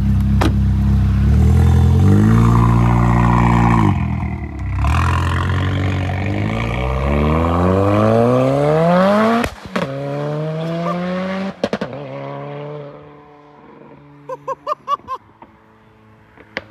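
Tuned turbocharged four-cylinder engine of a Ford Focus RS Mk3: a blip of revs, then hard acceleration with the pitch climbing for several seconds to a sharp bang at the gear change, the programmed shift bang. A second bang follows about two seconds later, then the engine note drops away and fades, with a quick run of short chirps near the end.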